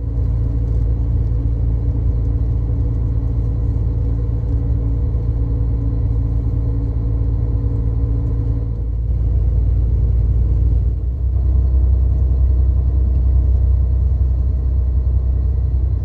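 Coach bus driving: a steady, loud low rumble of engine and road, heard from inside, with the engine's tone shifting about nine seconds in.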